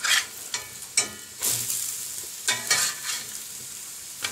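A metal spatula scrapes and turns diced sweet potatoes frying in butter in a cast-iron skillet. It makes several separate scrapes over a steady sizzle.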